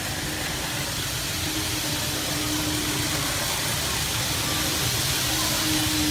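N gauge model train running on layout track: a steady whir and rail noise with a faint humming tone coming and going, growing slightly louder near the end as it comes closer.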